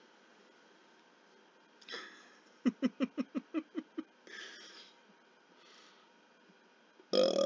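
A quick run of about eight short laughing pulses, about six a second and fading, a little over two and a half seconds in, followed by a breath. Near the end a loud burp begins.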